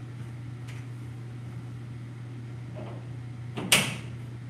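Steady low hum with one sharp knock about three and a half seconds in, as a person climbs onto an indoor cycling bike; a fainter knock comes just before it.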